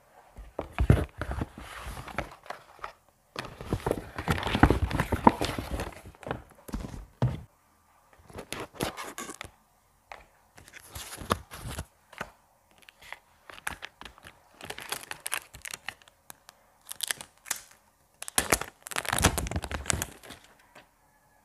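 Packaging of a Samsung phone being handled: a paper carrier bag and cardboard box rustling, with wrapping crinkling and tearing and small taps and clicks. It comes in about eight bursts separated by short pauses, and the bursts near the start and near the end are the loudest.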